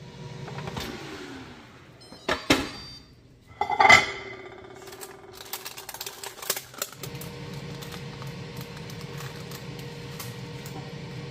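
Kitchen handling sounds: a couple of loud knocks and a ringing metallic clang as the Instant Pot's stainless steel insert and air-fryer basket are handled, then a run of light clicks and scrapes as the fish is slid onto a plate with a spatula, over a steady hum.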